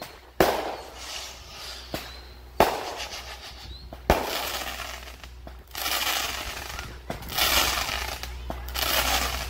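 Consumer fireworks going off: three sharp bangs of shells bursting in the first four seconds, then long hissing spurts of sparks in the second half.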